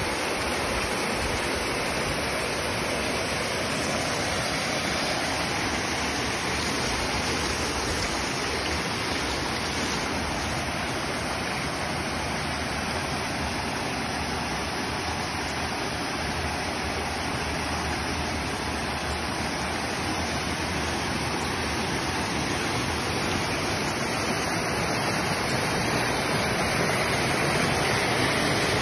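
Muddy floodwater rushing across a road and pouring over low walls, a steady rushing noise that grows a little louder near the end.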